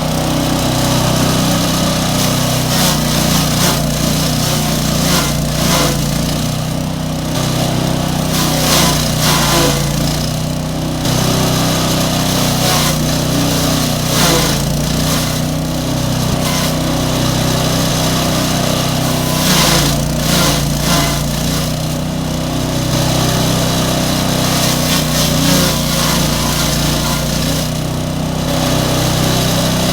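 Engine-driven grass chopper machine running steadily on a test run, its engine holding an even note. Short rushing surges recur every few seconds over the steady drone.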